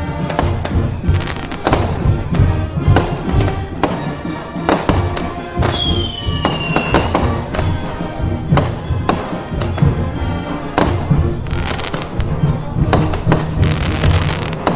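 Festival band music with firecrackers popping throughout as many sharp cracks, and a short falling whistle about six seconds in.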